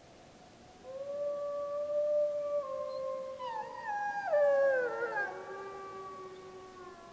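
Gray wolves howling in chorus: one long howl begins about a second in, and from about three seconds in several more howls join and overlap, their pitches stepping down, before fading near the end. A pup is among the howlers, answered by adult pack members.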